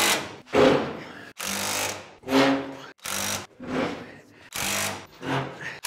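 Seized bush hog tailwheel spindle grinding, metal on metal, in its housing as it is twisted back and forth under a puller, in about eight short bursts. The spindle is just starting to break loose.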